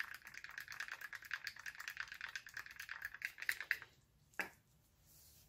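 Stir stick mixing thick heavy body carbon black acrylic paint with Floetrol in a clear plastic cup: a rapid run of small ticks and scrapes against the cup's sides. The stirring stops about four seconds in, followed by a single tap.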